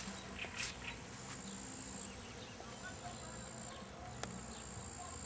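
Insects trilling: a steady, high-pitched trill that breaks off and starts again several times, with faint chirps around it. There is a single sharp click about four seconds in.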